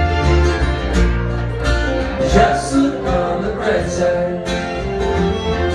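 Live bluegrass band playing: a bowed fiddle, strummed acoustic guitars and a plucked upright bass.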